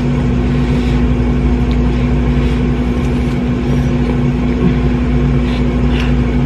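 Steady mechanical hum with a constant low tone, like a running room appliance, under faint chewing and a few light clicks of a fork against a plastic cup.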